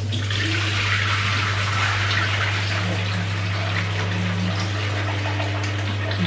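Water running and splashing into a stainless-steel kitchen sink as rice is rinsed in hot water and drained from a plastic tub. The steady splashing hiss is loudest in the first couple of seconds, over a constant low hum.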